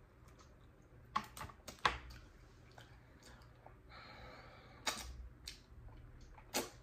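Close-up wet eating sounds while eating sauced spare ribs by hand: a few sharp lip smacks and mouth clicks, with a softer sucking sound about four seconds in as sauce is licked from the fingers.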